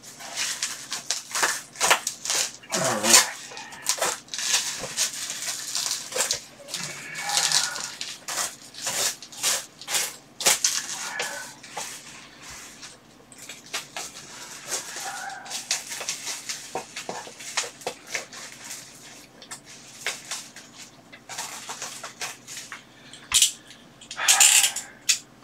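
Box cutter slicing through heavily taped plastic wrapping on a large cardboard parcel, the wrapping crinkling and tearing in irregular rips and rustles, with a few short squeaks.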